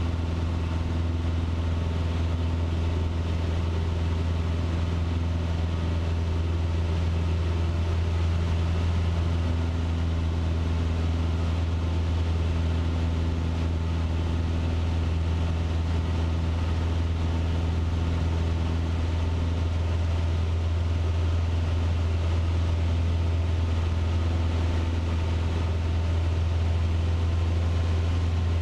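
Cessna 150's Continental O-200 engine and propeller droning steadily in flight, heard inside the cockpit.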